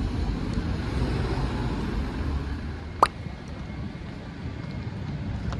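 Steady low rumble of a moving car, with one sharp click about three seconds in.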